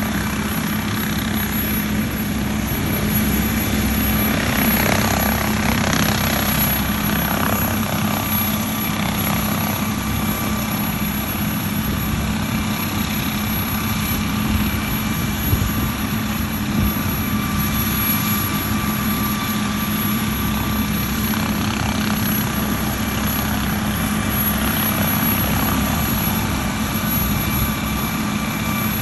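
London Air Ambulance MD 902 Explorer helicopter running steadily on the ground, its turbine engines giving a steady whine over the rushing noise of the rotor.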